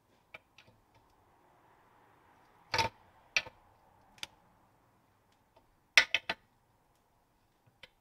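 Scattered sharp metal clicks and clanks from hand tools and brake parts being worked on a Land Rover Series 2 rear brake backplate with shoes fitted. The loudest come about three seconds in and as a quick group of three about six seconds in.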